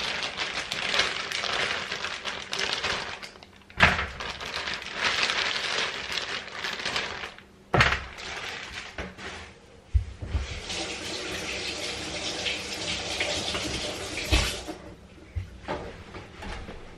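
Water running in three stretches of a few seconds each, with sharp knocks between them, as at a kitchen sink.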